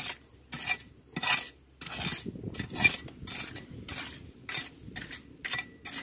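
A small metal hand tool scraping and raking through coarse wet gravel and shell grit in a rock crevice, digging for carpet-shell clams. Short, repeated scrapes come about two a second.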